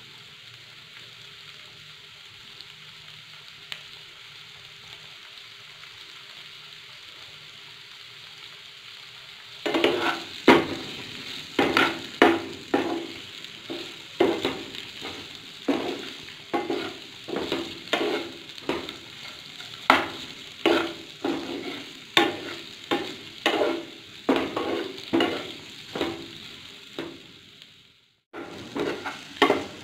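Mutton liver sizzling in oil in a non-stick frying pan. About ten seconds in, a spatula starts stirring and scraping the pieces around the pan in quick strokes, one or two a second, with a brief dropout near the end.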